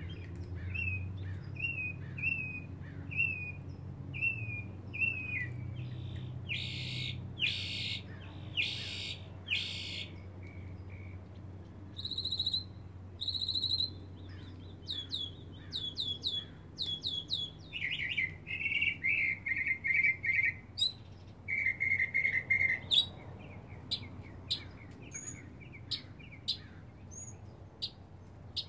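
Northern mockingbird singing a long medley of varied phrases, each repeated a few times before it switches to the next: clear short notes, loud harsh buzzy notes, quick falling notes and rapid chattering runs.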